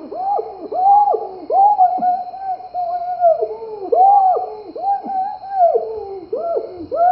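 A man's high-pitched wailing, a string of drawn-out sobbing cries that rise and fall about once a second, one held longer about two seconds in.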